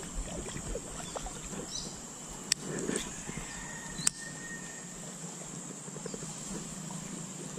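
Steady high-pitched drone of insects, with light rustling of fishing tackle and two sharp clicks about a second and a half apart, the second coming after a brief thin whine.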